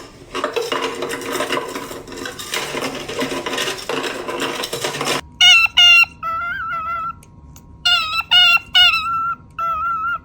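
A jumble of clattering noise with bird sounds for about five seconds. Then a parrot whistles a string of short, clear notes, some held and wavering, with brief pauses between them.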